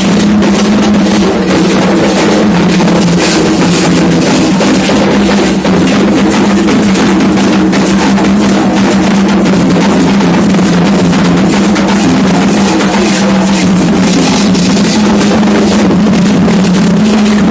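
Loud, dense Candomblé ritual drumming on atabaque hand drums, with a steady low tone held underneath.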